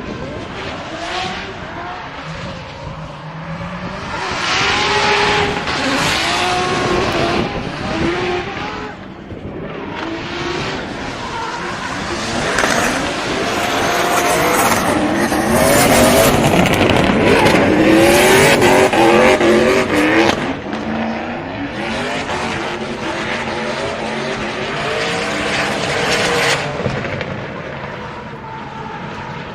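Drift cars at full throttle, their engines revving up and down in repeated sweeps, with tyres screeching through the slides. Loudest in the middle, easing off about two-thirds of the way through.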